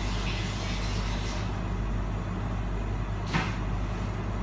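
Steady mechanical hum of running kitchen appliances, with one sharp click about three and a half seconds in.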